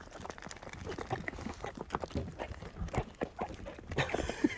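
Chickens pecking at feed pellets: a busy run of quick, irregular taps, with short soft clucks among them.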